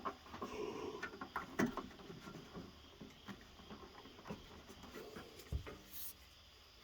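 Faint handling noises: scattered clicks, ticks and rustles as a rubber window gasket is pushed and worked by hand into the door's window channel of a pickup truck, with a short hiss near the end.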